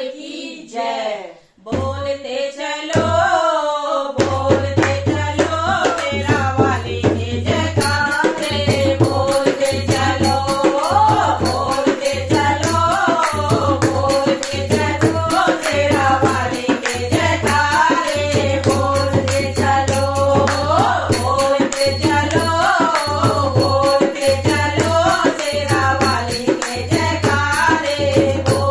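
Group of women singing a Hindi devotional bhajan, accompanied by a dholak and hand clapping. After a brief break near the start, the drum and clapping come in and settle into a steady, driving beat under the singing.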